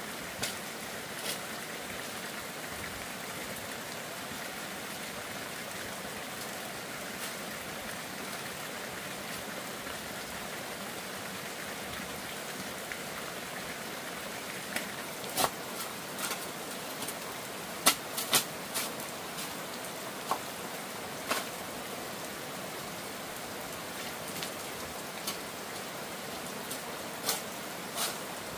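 Steady, even hiss of outdoor ambience with scattered sharp knocks or taps at irregular intervals, most of them in the second half.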